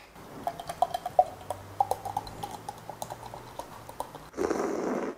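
Beer being poured from an aluminium can into a glass: liquid glugging with many small crackles and pops of foam fizzing, then a louder, steady rush of pouring near the end.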